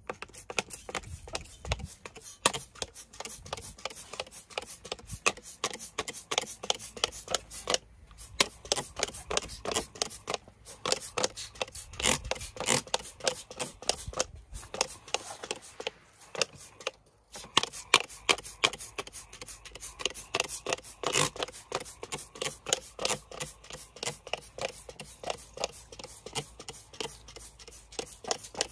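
A trigger spray bottle of degreaser being pumped over and over, each pull a short hiss of spray, several a second, with a few brief pauses.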